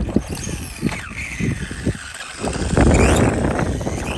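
Electric drive motor of a 1/4-scale SkyRC SR5 RC dirt bike whining, its pitch falling and then rising sharply about three seconds in as it speeds up. Gusty wind on the microphone rumbles underneath and gets louder near the same moment.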